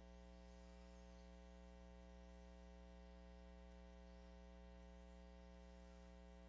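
Near silence, with only a steady low electrical hum and its overtones.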